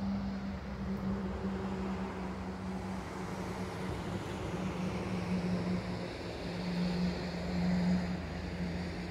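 Low, steady engine hum of a road vehicle with traffic noise from a level crossing, swelling slightly about eight seconds in.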